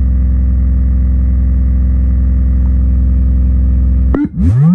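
Tube guitar amp played flat out with a 20 Hz test tone from a function generator: a loud, steady low drone through the speaker, stressing the power amp. A little past four seconds the tone gives way to quick upward sweeps in pitch.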